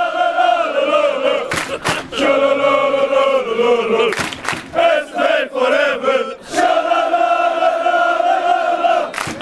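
Crowd of Essevee (Zulte Waregem) football supporters chanting a song in unison, many male voices holding long notes, with a few sharp claps cutting in between phrases.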